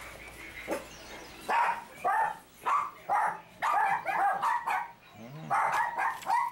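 A dog barking repeatedly: about ten short barks in quick runs, starting about a second and a half in.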